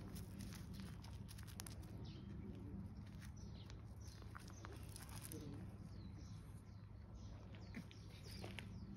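Faint footsteps and small paws crunching on gravel, scattered light clicks, with a few faint bird chirps and a low steady rumble.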